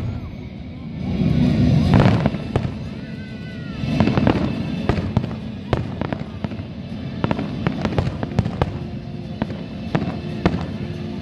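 Fireworks display: aerial shells bursting with deep booms about two seconds in and again around four seconds, followed by a steady run of sharp cracks and pops.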